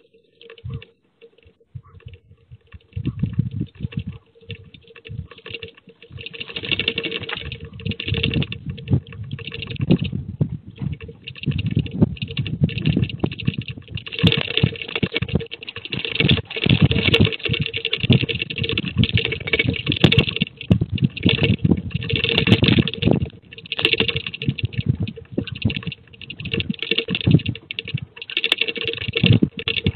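Rapid, irregular rattling clatter over a low rumble as the ground shakes in the 6 February 2023 Türkiye earthquake. It starts about three seconds in and grows louder, continuing in surges.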